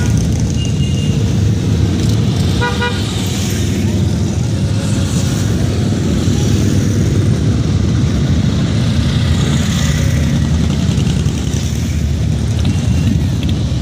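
Touring motorcycles and trikes passing slowly in a steady stream, their engines giving a loud, continuous low rumble. About two and a half seconds in, a horn gives one short toot.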